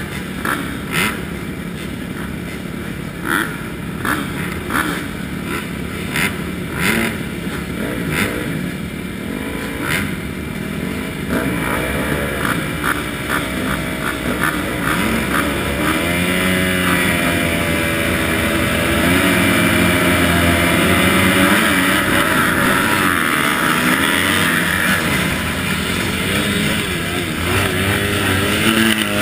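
A field of motocross bikes revving at the starting gate in short, sharp blips. A little past halfway the pack launches, and the engines rise together to a sustained full-throttle run.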